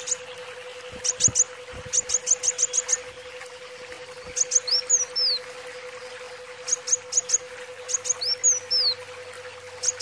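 Sunbird (kolibri wulung) singing: quick runs of three to six short, high, sharp chirps, broken by slurred notes that rise then fall about halfway through and again near the end.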